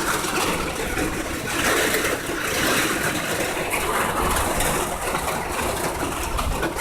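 Heavy rain pouring down: a steady, even hiss of rainfall.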